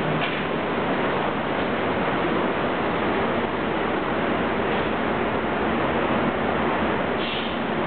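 KL Monorail train standing at the station platform, giving a steady rushing noise, with a faint click near the end.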